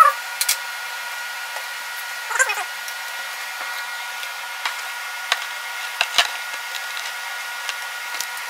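Fast-forwarded audio of Lego building: scattered short clicks of plastic bricks and a couple of brief, squeaky sped-up voice chirps over a steady hiss.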